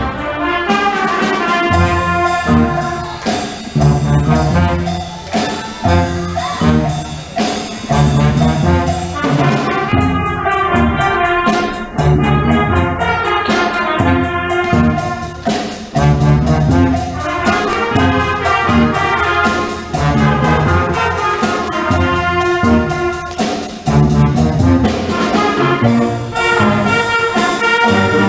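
Student jazz band playing live, trumpets and trombones over a steady, pulsing bass beat.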